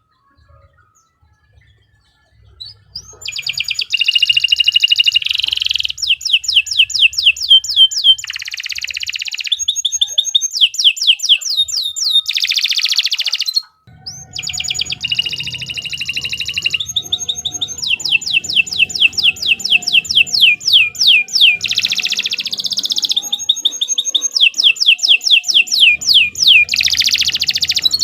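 Domestic canary singing a long song of fast trills, each a rapid run of repeated down-slurred notes, broken by a few buzzy phrases. The song starts after a couple of seconds of quiet and breaks off briefly about halfway before going on.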